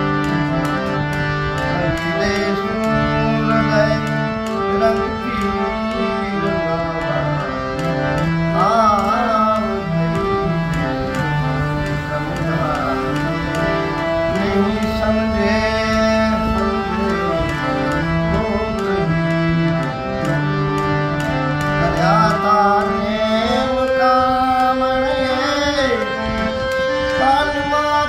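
Paul & Co. harmonium played with held chords and a moving melody, a man's voice singing phrases over it now and then, with a light steady tapping beat underneath.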